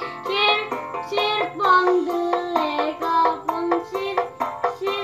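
A child singing a melody with a lively, bouncing line, over accompanying music with a regular beat.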